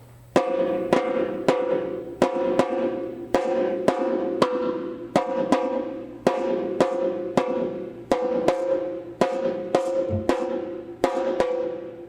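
Repique drum played solo in an axé rhythm: sharp, ringing strokes in a steady repeating pattern, starting about half a second in.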